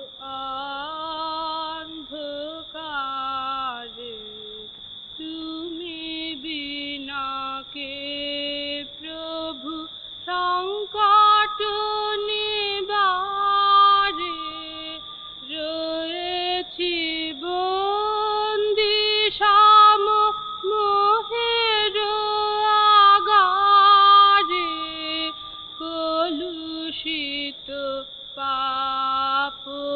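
A boy's voice singing a devotional song, one unaccompanied-sounding melodic line of long held notes with slow glides and ornaments, louder in the middle phrases. A faint steady high-pitched whine runs underneath.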